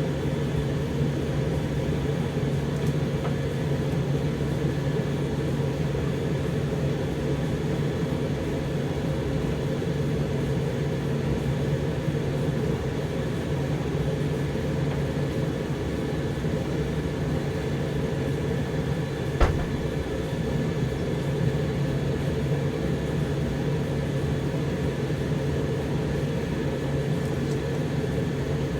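Zanussi TD162 compact tumble dryer running mid-cycle: a steady hum and whirr of the drum motor and fan, with a single sharp click about two-thirds of the way through.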